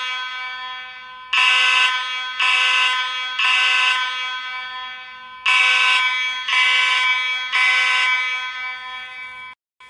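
Space Age AV32 fire alarm horn sounding in the temporal-three pattern: three buzzy horn blasts about a second apart, a longer pause, then three more, each blast trailing off with room echo. Near the end the sound cuts out for a moment. The temporal-three code is the standard fire evacuation signal.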